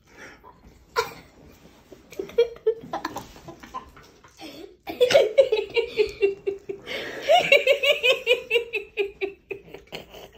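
A person laughing in a long run of quick pulses from about halfway in, the pitch falling slowly through the run. A sharp click comes about a second in.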